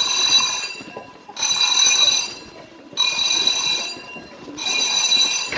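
Electric fire alarm bells of an Eltek Delta Compact system ringing in an on-off pattern: bursts of about a second with short pauses, four bursts in all. The alarm was set off falsely by dust in a smoke detector.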